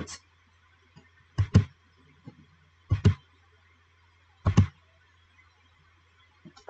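Three sharp double clicks, about a second and a half apart, from a computer mouse being clicked to step through slide animations, over a faint low steady hum.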